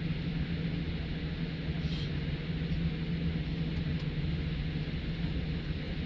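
Steady cabin noise inside a Boeing 787 Dreamliner on the ground: an even low hum with a constant drone from the engines and air system.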